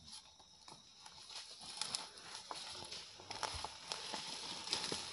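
Footsteps pushing through dry leaf litter and undergrowth: irregular crackles, snaps and rustles of leaves and twigs, getting louder about three and a half seconds in.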